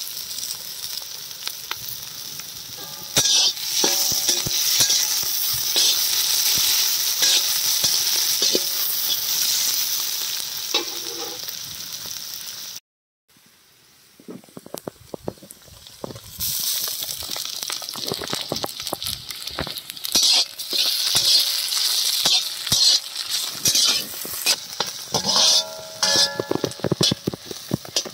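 Sliced onions sizzling in hot oil in an iron kadai, with a metal spatula scraping and clattering against the pan as they are stirred. The sound cuts out for a moment about halfway through, then the sizzling and scraping go on.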